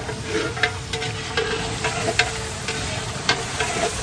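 A long metal ladle stirring nihari in a large metal cooking pot, knocking and scraping against the pot's sides about six times over a steady noisy bed.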